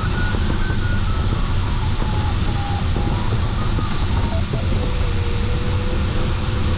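Steady airflow rush in a sailplane cockpit, with a variometer's electronic tone stepping down in pitch over the first few seconds, holding a low note, then stepping up again near the end. The falling tone shows a thermal that is not getting stronger.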